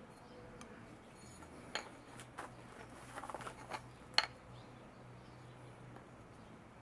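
A few light metallic clinks and taps as a knife blade and a piece of aluminium tubing are handled and set in place on a wooden stump, with one sharper clink about four seconds in.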